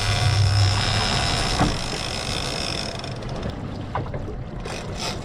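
Boat under way: a Yamaha 250 outboard running, with wind and water noise. About three seconds in, the hiss drops away and the sound eases off.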